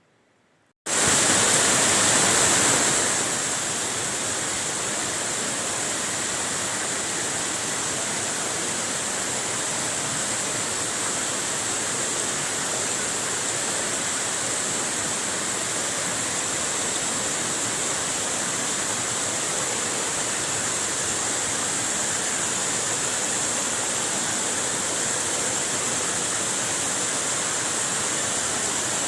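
Waterfall: a steady rush of falling water. It starts abruptly about a second in after a moment of near silence and is a little louder for its first couple of seconds.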